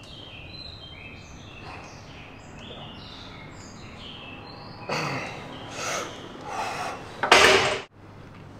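A lifter's hard, forceful breaths while straining through a set on a gym machine: four bursts in the second half, the last the loudest, cutting off abruptly. Faint high chirping tones sound in the first half.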